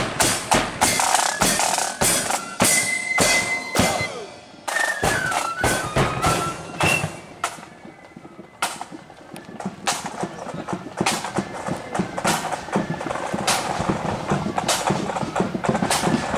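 Marching flute band playing: side drums and bass drum beating, with flute notes over them in the first seconds. The playing thins out for a few seconds in the middle, then steady marching drum beats take over.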